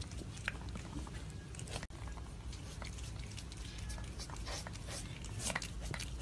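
A cat biting and chewing at food on a plate: scattered small clicks and smacks over a low steady hum. The sound cuts out for an instant about two seconds in.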